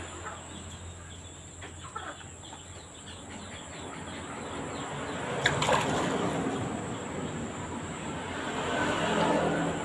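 A young chicken sick with ngorok, a respiratory infection that fills its throat with mucus, being held while its throat is swabbed with a feather: scuffling and handling noise with a few short clucks, and a sharp knock about five and a half seconds in.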